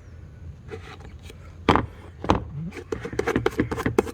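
Metal grease tin being handled: two sharp knocks, then a fast run of small clicks and taps.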